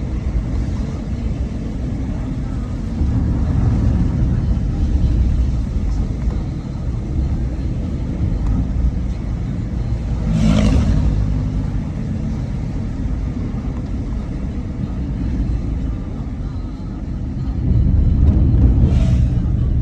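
Moving car's steady low rumble of engine and road noise, swelling briefly about ten seconds in and again near the end.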